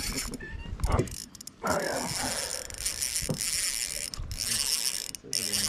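Fishing reel being cranked steadily, its gears whirring and clicking as the lure is retrieved. A low bump sounds about a second in.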